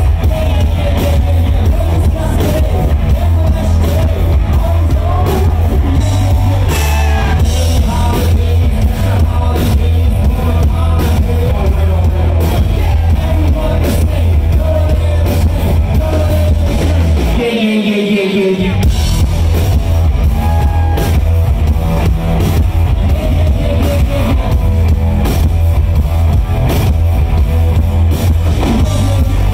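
Live rock band playing loud: electric guitar, bass and drum kit with a male lead singer. About halfway through, the bass and drums drop out for about a second under a sung line, then the full band comes back in.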